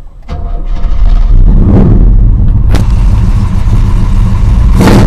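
Chevrolet 454 big-block V8 running with a heavy low sound, revved in short blips about two seconds in, again a second later, and near the end.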